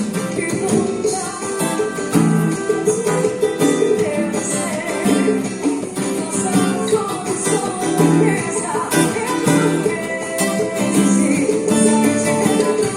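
Takamine acoustic guitar being played: chords and notes ringing out, changing about every second.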